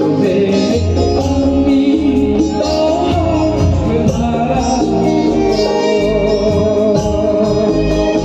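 Live band music with a man singing into a microphone, over keyboard, electric guitar and a barrel-shaped hand drum.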